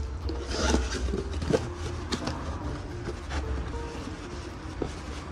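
Gloved hands open a small cardboard box and pull a new engine thermostat out of its plastic wrap: scattered rustles and clicks of cardboard flaps and crinkling plastic, busiest in the first second. A steady low hum runs underneath.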